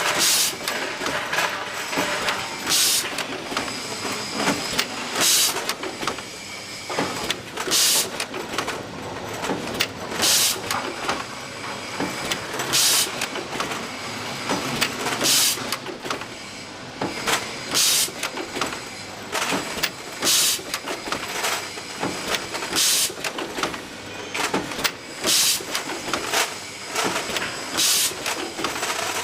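Automatic chain-making machine running in its cycle: continuous mechanical clatter with a short hiss about every two and a half seconds.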